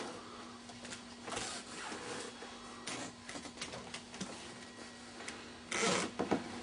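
Faint handling noise: scattered small clicks and rustles over a steady low hum, with a louder rustle about six seconds in.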